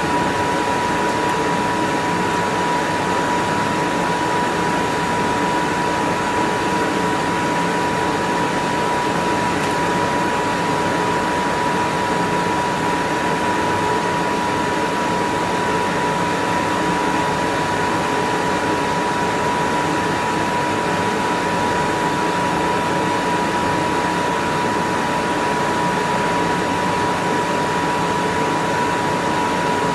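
A steady, unchanging machine noise with a constant high-pitched whine running through it.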